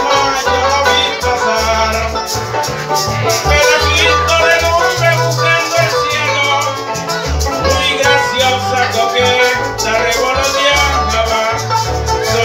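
Live Venezuelan llanera band playing an instrumental passage: quick plucked harp runs over a strummed cuatro, a walking electric bass line and steadily shaken maracas.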